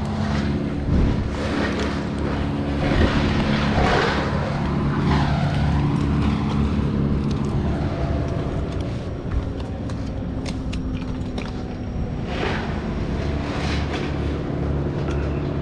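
An engine running steadily at constant speed, with a few swells of rougher noise over it in the first few seconds and again near the end.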